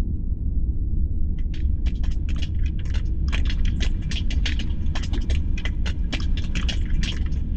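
Steady low rumbling hum of a Death Star space-station ambience, a sci-fi backdrop sound effect. About a second and a half in, a busy, irregular run of short clicks and crackles starts over the hum and keeps going.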